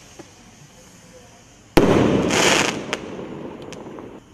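Firework rockets from a rocket pack: about two seconds in, a sharp bang, followed at once by a loud rushing whoosh that fades over about a second, then a couple of faint pops.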